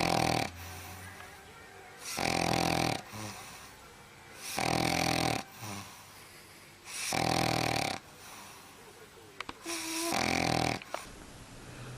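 A sleeping pet snoring in a steady rhythm, one loud snore about every two and a half seconds, five in all, with a brief thin whistle just before the last one.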